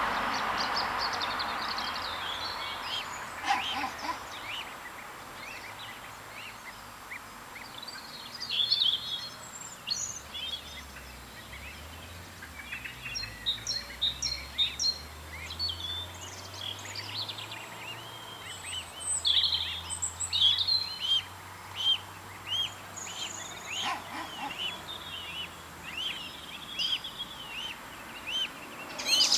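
Small birds chirping and singing: many short, high notes, some in quick runs. A broad rushing noise fades away over the first few seconds, and a faint low hum sits underneath in the middle.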